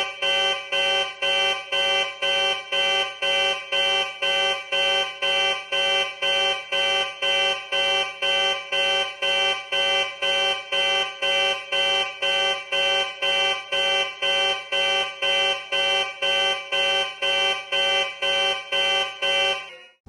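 Ship alert alarm sound effect: a buzzing, horn-like warning tone pulsing about twice a second, steady and unchanging, like a navy or spaceship red alert. The pulses stop abruptly near the end.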